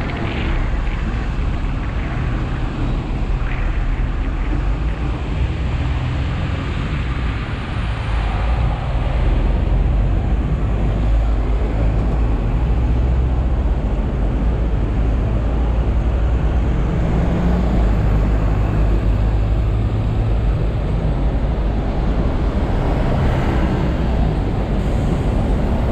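Steady low rumble of a Hong Kong double-decker electric tram ride heard from its upper deck, mixed with city road traffic. From about a third of the way in, the tram stands at a junction while double-decker buses and cars pass close by, and the noise grows a little louder.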